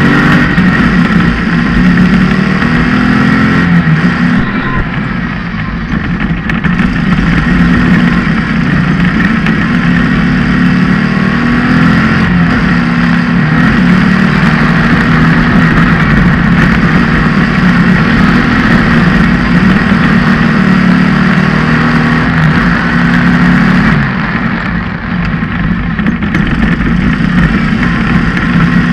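Tube-frame off-road race buggy's engine heard from on board, running hard at racing speed with the rattle and rush of driving over dirt. Its sound drops briefly about five seconds in and again near the end, then picks back up.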